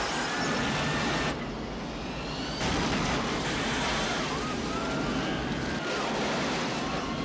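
Film soundtrack of an airliner cabin in chaos as debris whirls through it: a steady rushing noise with faint high wavering tones over it, growing a little louder about two and a half seconds in.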